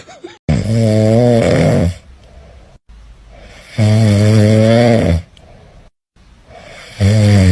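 Loud snoring: three long, droning snores about three seconds apart, the last starting near the end.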